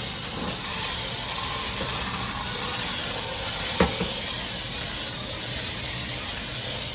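Water spray from a hose nozzle hissing steadily as it flushes a microchannel condenser coil from the inside, with a single short knock about four seconds in.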